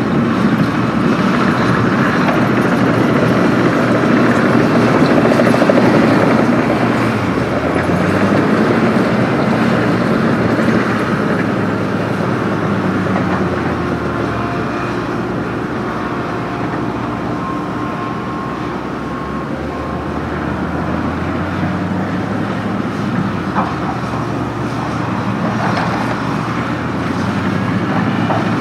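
Excavator's diesel engine running steadily as the machine works, its pitch shifting up and down a few times, with a couple of short knocks near the end.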